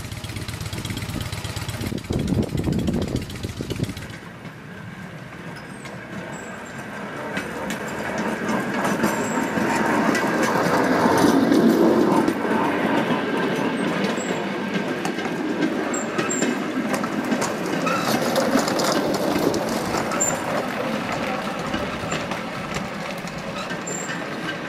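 Small rail trolleys running along the track, their wheels rumbling and clicking on the rails, building to a peak near the middle and easing off. Until about four seconds in, heavy wind noise on the microphone covers everything.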